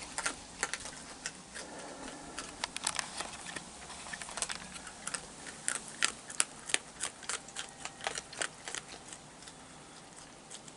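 Raccoons chewing dry food such as peanuts and kibble: a run of irregular, sharp crunches and clicks, several a second.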